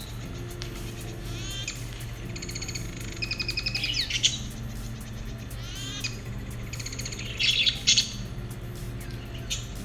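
Lovebirds chirping in several bursts of rapid, high chirps, over quiet background music.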